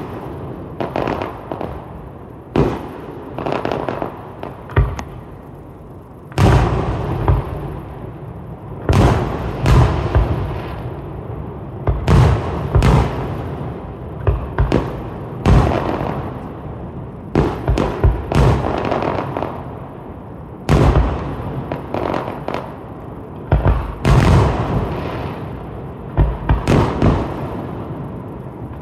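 Aerial firework shells bursting in an irregular stream of loud booms and crackles, often several in quick succession, each bang trailing off in a fading echo.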